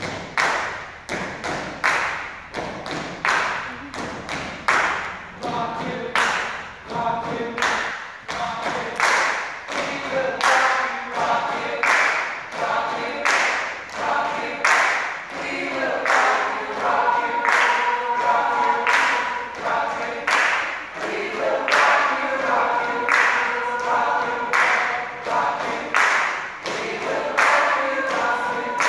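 A steady beat of hand claps by a group of performers, joined about five seconds in by many voices singing together without instruments.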